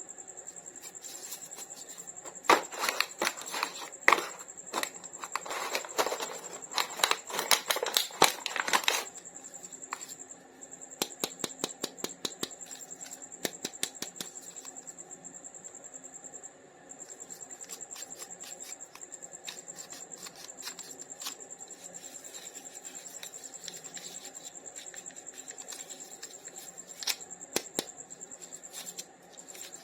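Hands handling plastic toy packaging and figures: a burst of crinkles and sharp clicks, then a quick run of small ticks and scattered clicks. A faint steady high-pitched tone runs underneath.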